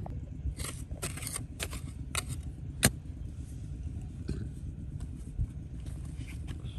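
A steady low motor rumble with a string of sharp knocks and metallic clicks over it, the loudest a little under three seconds in.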